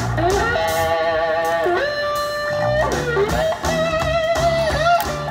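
Blues music led by an electric guitar playing long, bent notes with vibrato over a steady bass line.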